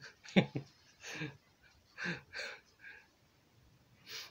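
A man's breathy vocal sounds: a handful of short puffs and half-voiced, whispery bursts, with a last breath near the end.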